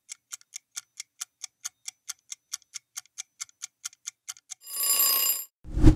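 Quiz countdown-timer sound effect: a clock ticking fast and evenly, about four to five ticks a second, then a ring of about a second as the timer runs out, and a short deep thump at the very end.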